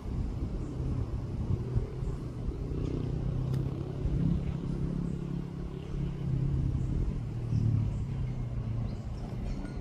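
A motor vehicle's engine running with a steady low rumble, its hum shifting slightly in pitch.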